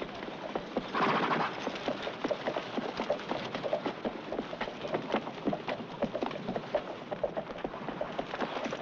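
Hooves of several horses clopping irregularly on arena dirt, with a brief louder noise about a second in.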